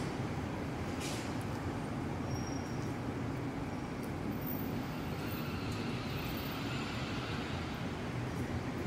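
Steady rumble of city road traffic, engines and tyres blending into a constant hum.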